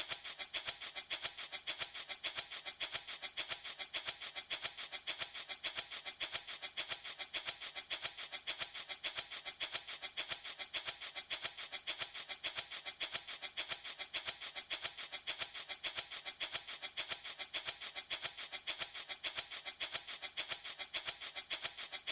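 Handmade baby rattle shaken in a steady, even rhythm, about four shakes a second, each a crisp, high rattle of beads or pellets.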